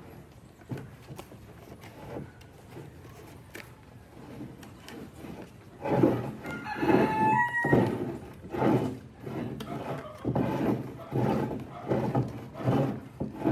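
A hand tool rubbed back and forth on wood in steady strokes, about one and a half a second, starting about six seconds in after some light tapping. A rooster crows once in the background around seven seconds in.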